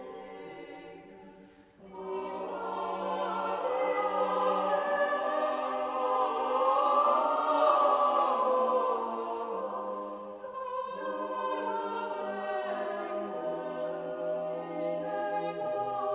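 A vocal ensemble singing unaccompanied: held polyphonic chords of a Marian motet built on a late-medieval Middle Dutch melody. A soft chord dies away, and after a brief breath just under two seconds in, the voices come back in and swell to their fullest in the middle.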